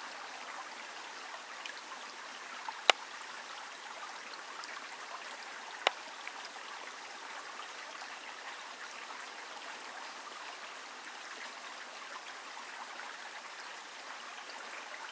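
Shallow stream water running steadily over stones, a gentle trickle. Two sharp clicks cut through it, about three and six seconds in.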